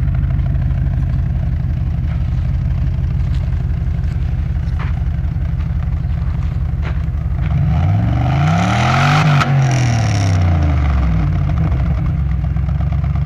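1996 Cadillac Seville STS's Northstar V8 heard from the exhaust, idling, then revved once about seven seconds in. The pitch climbs for about two seconds, then falls back to idle over the next two.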